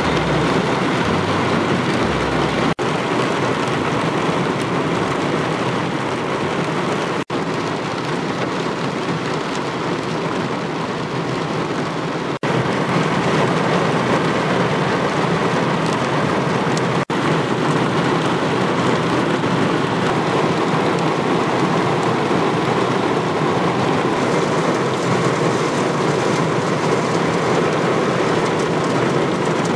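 Heavy rain pouring down steadily in a dense, even hiss, broken by four very brief dropouts.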